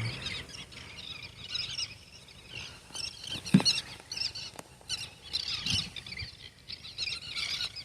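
A large flock of seabirds calling over the water, many short, high cries overlapping, with one lower, falling call about three and a half seconds in.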